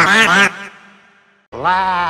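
A man's voice speaking, cut off about half a second in and fading away in an echoing tail to near silence. About a second and a half in, a voice starts holding one long note at a steady pitch.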